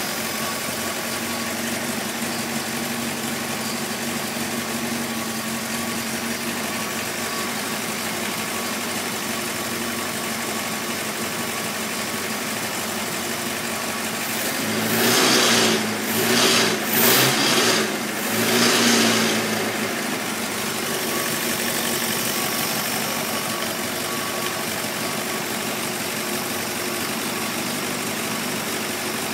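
Facel Vega Facellia twin-cam four-cylinder engine running on a test bench after a bottom-end overhaul, idling steadily. About halfway through it is revved briefly about four times in quick succession, then settles back to idle.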